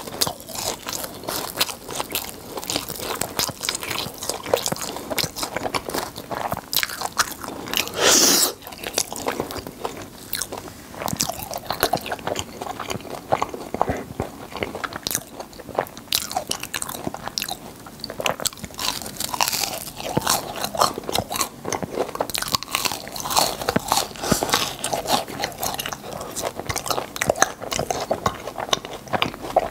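Close-miked crunching and chewing of fried churros, the crisp sugar-coated crust cracking in quick dense clicks as it is torn and bitten. A longer, louder crunch comes about eight seconds in.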